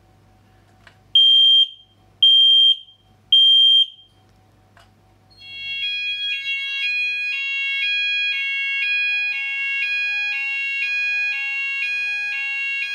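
Ei carbon monoxide alarm under test, giving three loud single-pitch beeps about a second apart. About two seconds later the fire alarm system's sounders start a continuous alert tone for carbon monoxide: high and low notes alternating about twice a second over a steady tone.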